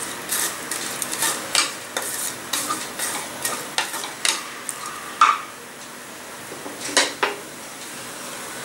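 Wooden spatula stirring and scraping fried onions and ginger-garlic paste around a metal pressure-cooker pan, with irregular clicks and scrapes against the metal over a soft sizzle of frying. The stirring stops about five seconds in, with one more knock near seven seconds.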